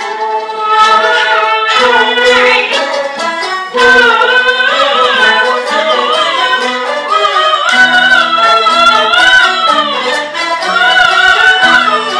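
Peking opera music starting abruptly: a high, wavering melody over lower stringed notes that step from pitch to pitch, with frequent sharp percussion clicks. The melody line is carried by the jinghu fiddle, possibly with the singer's voice.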